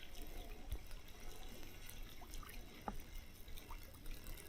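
Faint trickling of river water, with a few faint ticks scattered through it.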